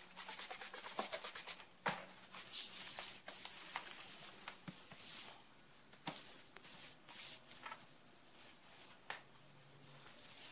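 A cloth in a gloved hand wiping across a galvanized sheet-metal workbench top: quick back-and-forth scrubbing strokes for about the first two seconds, then slower, scattered strokes with a few sharper knocks.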